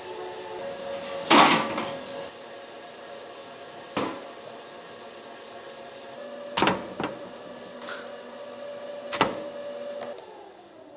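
Stainless steel tray set down on a wooden table with a loud clatter about a second in, then a few sharp knocks and slaps as raw fish fillets are laid onto the metal tray.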